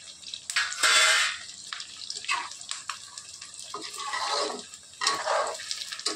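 Chicken pakoda pieces and curry leaves sizzling in hot oil in an aluminium kadai, with a loud flare of sizzling about a second in. In the second half a metal ladle scrapes and stirs through the pieces against the pan several times.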